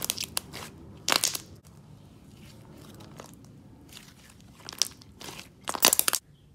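Thick, stretchy light blue slime squeezed, stretched and squished by hand, trapped air bursting out in several short crackly bubble pops. The loudest bursts come about a second in and just before the end.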